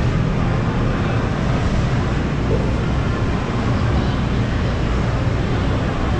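Steady urban background noise of a busy city plaza: a low rumble with indistinct voices mixed in, holding an even level throughout.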